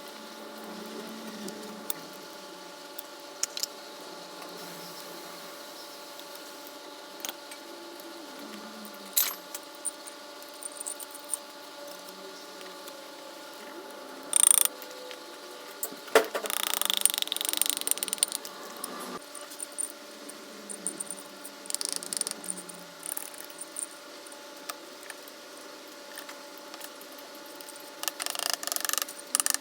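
Metal hand tools and engine parts clicking and clinking on a workbench, with a burst of rattling about halfway through and a fast run of ratchet-like clicks near the end, over a steady background hum.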